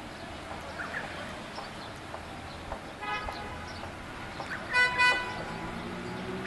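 Vehicle horn honking: a short, quieter honk about three seconds in, then two louder short honks about five seconds in. Afterwards a low hum rises steadily in pitch.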